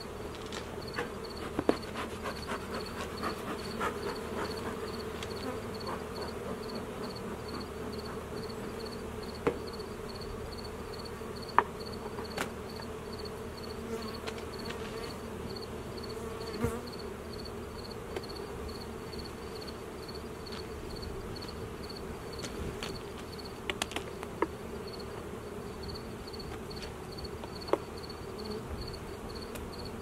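A swarm of honey bees buzzing steadily around an opened hive, with a few sharp clicks and knocks of the hive tool and wooden hive boxes being handled.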